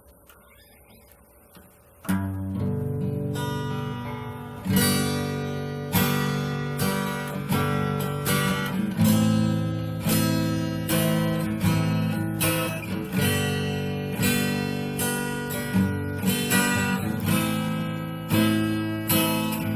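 Yamaha FX315 acoustic guitar being played in a sound check. After about two seconds of near silence, chords start and ring on, with a new one struck about once a second.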